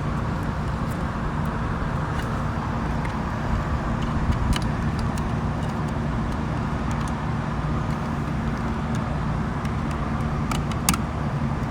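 Steady low hum and rumble of outdoor background noise, with scattered light clicks and ticks of small parts being handled.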